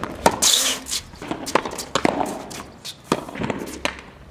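Tennis ball being struck by rackets and bouncing on a hard court during a practice rally: a series of sharp, irregular pops. There is a brief scraping hiss about half a second in.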